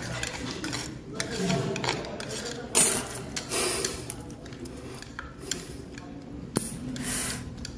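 A small metal pick scraping and prying bits of shell off the membrane of a raw egg: irregular scratchy rubs and light clicks, the loudest scrape about three seconds in and a single sharp click near the end.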